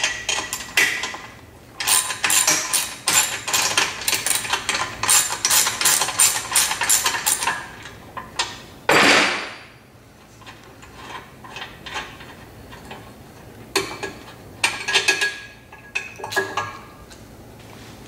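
Wrench and steel bolt hardware clicking and clinking in a quick run for several seconds while the wheel of a hydraulic cart is unbolted. Then comes a louder noise about a second long, and a few more scattered clinks near the end.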